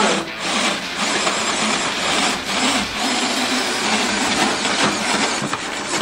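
Scale RC crawler truck clambering over wooden log steps: tires and chassis scraping and knocking on the wood, with its drive running.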